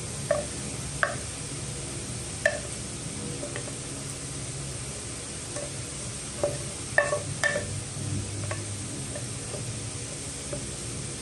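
Stir-fried carrots and pork sizzling steadily in a pan, with a few short sharp pops and clicks scattered through, several close together about seven seconds in.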